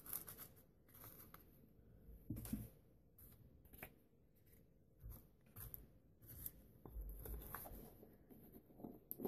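Mostly near silence, with faint scattered rustles and light taps from paper strips being lifted off a tabletop and a paint jar being handled, including a sharper click near the end.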